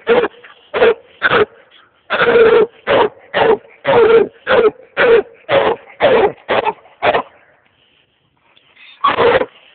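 Five-month-old coonhound pup barking treed: a quick run of short, loud barks, about two a second, then a pause and one more bark near the end.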